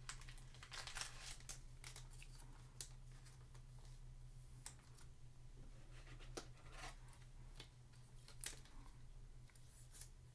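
Faint scattered clicks and rustles of a trading card in a plastic holder being handled in the fingers, over a low steady hum.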